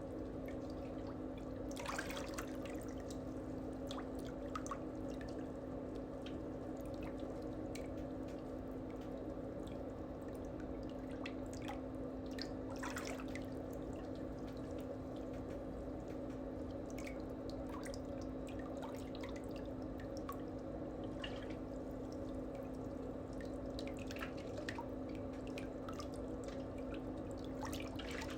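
A steady low hum, one held tone, with faint clicks and taps scattered through it.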